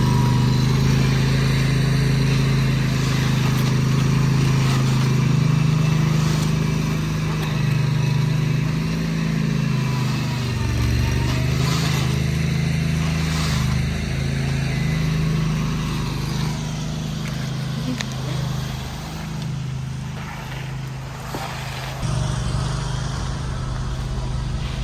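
Concrete truck's engine running steadily, its pitch dipping briefly about ten seconds in and settling lower near the end.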